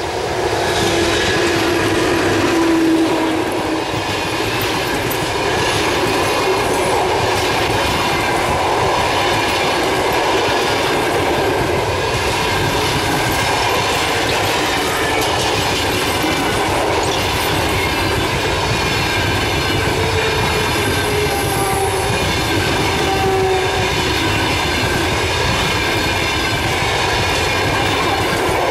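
EP1M electric locomotive passing at speed with an express passenger train, loudest about three seconds in as the locomotive goes by, then the coaches' wheels running past with a steady rumble and clickety-clack over the rail joints.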